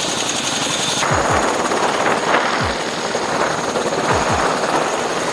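UH-60M Black Hawk helicopters running on the ground with rotors turning: repeated low rotor-blade thumps over a steady high turbine whine from the twin turboshaft engines. The whine jumps higher about a second in.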